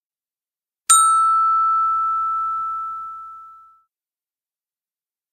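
A single bright chime struck about a second in, ringing and fading away over about three seconds: the page-turn signal of a read-along book.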